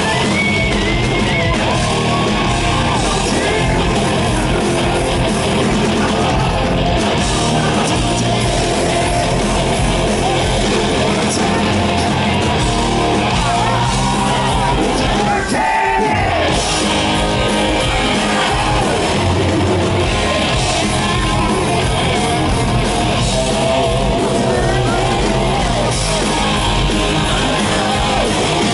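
Live hard rock band playing loudly in a large hall: electric guitars, bass and drums with a male lead singer. There is a brief break in the low end about halfway through.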